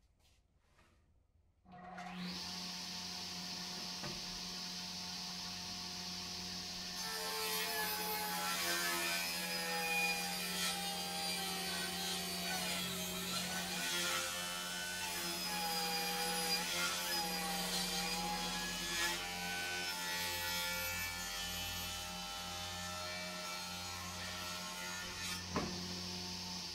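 Jobsite table saw switched on about two seconds in and running steadily, then ripping a long board held on a clamped sled: the louder, rougher cutting noise starts about seven seconds in and lasts until shortly before the end, where there is a single knock.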